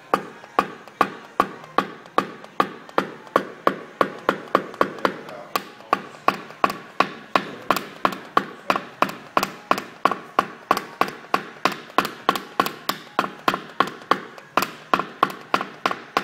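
Steady, evenly spaced taps, about three a second, of a hammer striking a clear plastic knockdown tool held against a car's roof panel, each tap ringing briefly: paintless dent repair, tapping down high spots in the metal.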